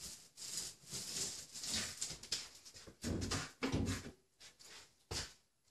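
Paint roller rolling thinned all-purpose joint compound onto textured drywall, a wet hissing swish in repeated strokes, then the roller dunked and knocked in a plastic bucket of compound with a few duller thumps about three to five seconds in.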